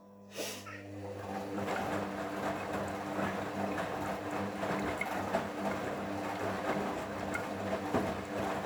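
Hoover front-loading washing machine's drum motor starting up after a pause in the rinse cycle, with a steady motor hum and the wet laundry and water sloshing and tumbling in the drum.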